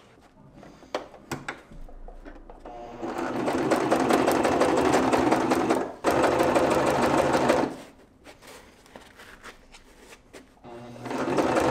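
Bernette electric sewing machine stitching a seam through backpack fabric. It runs from about three seconds in, with a brief break near the middle, stops, and starts again near the end, with small handling clicks in the pauses.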